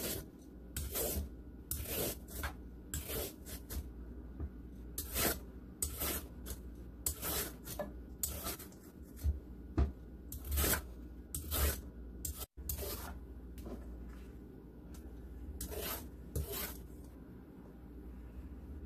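Vegetable peeler scraping down a raw carrot in repeated short rasping strokes, shaving it into ribbons against a plastic cutting board. The strokes come at about one or two a second, sparser in the second half.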